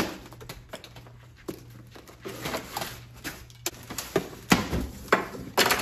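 A sharp snap as a knife cuts through a plastic packing strap on a cardboard box, then a series of scrapes, rustles and clicks of tape being slit and cardboard flaps being pulled open.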